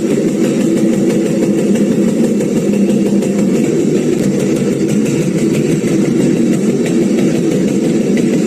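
Mechanical sieve shaker sound effect: a steady motor-driven buzz and vibration that runs evenly, with faint fine ticking on top.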